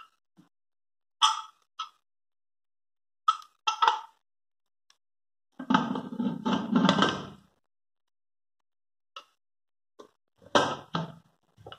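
Prestige Popular stainless steel pressure cooker lid knocking and clinking against the pot as it is fitted and closed: a series of short metallic clinks, with a longer rattling run lasting nearly two seconds about six seconds in.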